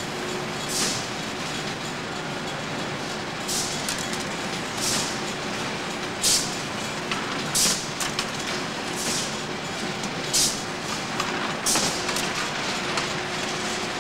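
Bakery conveyor machinery running steadily as baking tins of dough are carried along into the prover. A short, sharp burst of high noise repeats about every one and a half seconds over the running.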